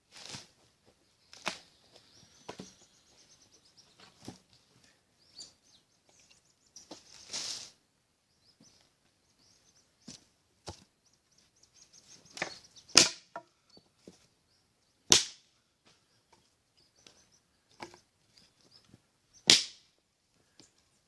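Irregular sharp cracks and knocks of dry sticks and firewood being handled and snapped, the three loudest coming in the second half.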